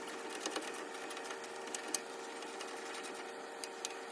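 Hand ratchet clicking in short runs as it turns the hub assembly's mounting nuts, over a steady background hum.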